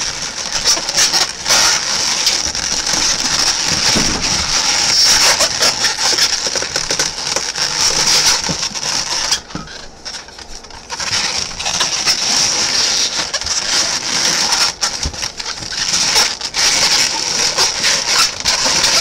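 Latex modelling balloons squeaking and rubbing against each other in the hands as they are twisted and wrapped together, a dense crackling squeak that eases off for a moment about ten seconds in.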